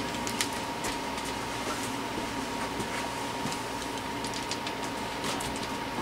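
Evergo-built Montgomery Ward 4E-2W ceiling fan running on low speed with a steady hum and a faint steady high tone, while scattered light clicks and knocks come from a small plastic clip fan being handled and moved.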